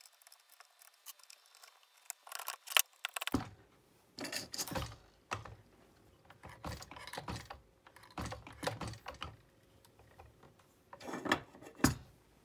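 Hands working on a robot car's metal and 3D-printed plastic suspension parts: irregular clicks, clatters and scraping as the parts are moved and fitted, with a sharp knock about three seconds in and another near the end.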